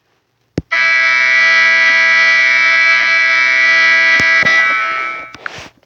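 An air horn sound effect from an air-horn app: one loud, steady multi-tone blast of about four and a half seconds that tapers off near the end, just after a short click.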